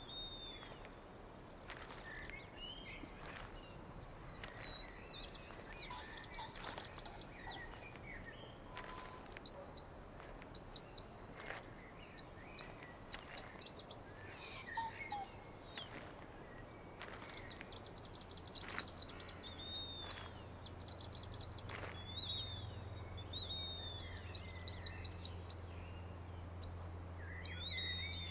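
Many overlapping high, bird-like chirps and warbling whistles with quick rising and falling glides, broken by scattered sharp clicks. A low steady hum comes in about two-thirds of the way through.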